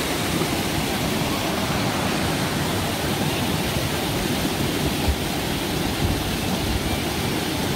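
Steady rush of water from a rocky stream tumbling over small cascades.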